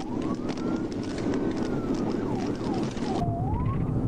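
Police car siren wailing in slow rising and falling sweeps, with a few quicker dips in the middle, over the road and engine noise of the patrol car in pursuit.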